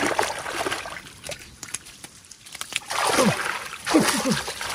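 Muddy water splashing and sloshing as hands grope through shallow water in a rice field, in two bouts: one at the start and a louder one about three seconds in, which carries a few short falling sounds.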